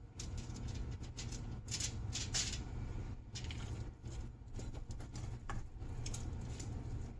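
Soft, irregular rustling and light crackles of hands working sticky bread dough and setting dough balls down on a foil-lined baking tray, over a steady low hum.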